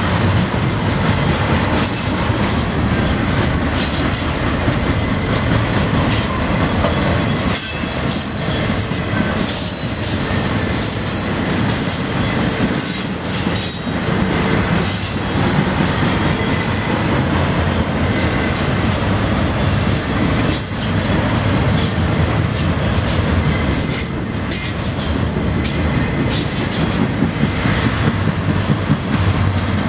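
Double-stack intermodal container train rolling past at close range: a loud, steady rumble of steel wheels on rail, with a thin wheel squeal and clacks at the rail joints.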